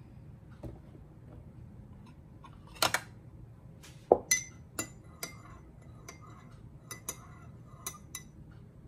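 Metal spoon stirring milky coffee in a ceramic cup, clinking against the cup's sides at irregular intervals, the loudest clink about four seconds in.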